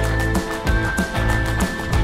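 Background music with a steady beat, heavy bass and a long held high note.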